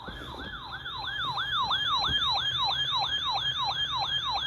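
Electronic siren-style emergency alert tone opening a Severe Thunderstorm Warning: a rapid, repeating yelp that sweeps up and down about three times a second.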